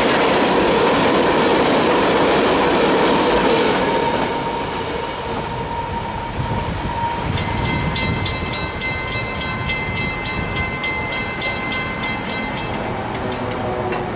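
Freight train of tank cars rolling past with a steady rumble and a thin wheel squeal, fading after about four seconds as the end of the train moves away. A rapid, evenly spaced high ringing then sounds for about five seconds and stops.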